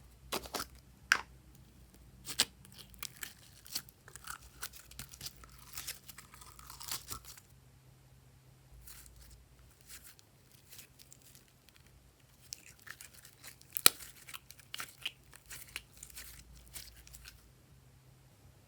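Glossy slime being pressed and stretched by hand, giving sticky crackling clicks and pops. The clicks come in two spells, one in the first seven seconds or so and one in the last third, with a quieter pause between.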